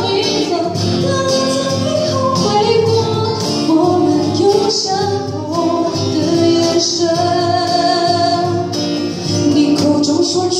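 A woman singing a song through a microphone, accompanied by two strummed acoustic guitars and a cajón.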